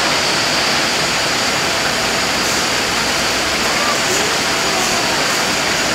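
Steady, loud rush of falling water from an indoor garden waterfall, even and unbroken.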